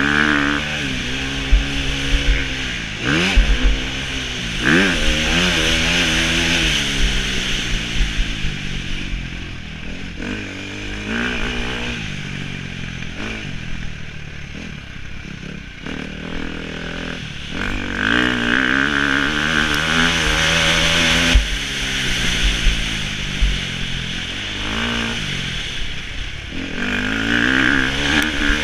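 Motocross bike engine revving hard and dropping back again and again as the rider accelerates, shifts and slows around the dirt track, heard close up from the rider's helmet-mounted camera.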